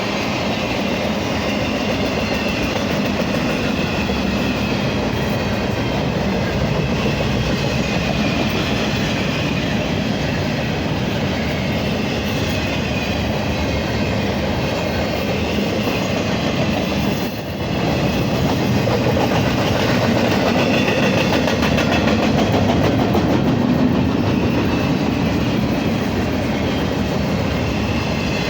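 BNSF intermodal double-stack freight train rolling past: a steady, loud rumble and clatter of wheels on the rails, with a brief dip in level about two-thirds of the way through.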